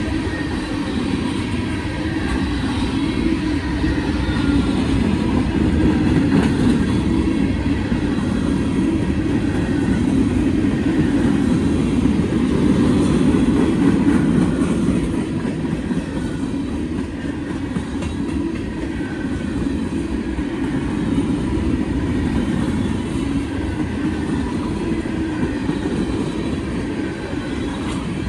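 Train cars rolling past: a steady, loud rumble of steel wheels on the rails with some clickety-clack, lasting throughout.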